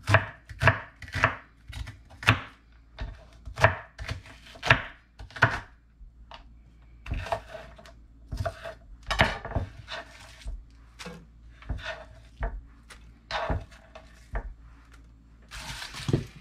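Chef's knife chopping an onion on a wooden cutting board: sharp knife strikes in an uneven rhythm, about two a second at first, then softer and more spaced out.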